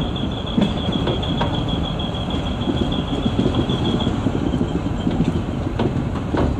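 Train of passenger coaches rolling round a curve, the wheels rumbling on the rails with a steady high flange squeal that fades away about four seconds in; a couple of sharp clicks near the end.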